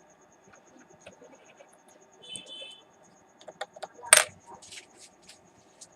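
Small metal objects clinking and tapping on a workbench during PCB soldering work. A short metallic ring comes about two seconds in, then a run of sharp clicks, the loudest a little after four seconds.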